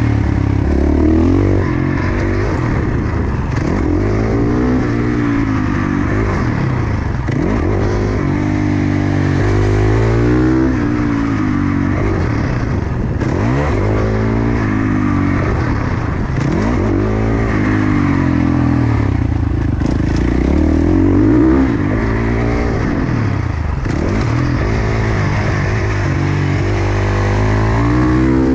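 KTM single-cylinder four-stroke supermoto engine heard onboard, revving up and dropping back over and over as the rider accelerates out of corners and backs off into them, with wind noise.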